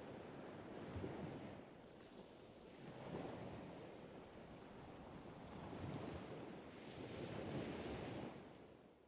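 Soft ocean surf, waves washing in and swelling and ebbing every couple of seconds, fading out near the end.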